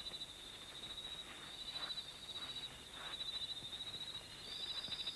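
Crickets trilling: a steady, high-pitched pulsing chorus, with a second, slightly higher trill joining in twice for about a second.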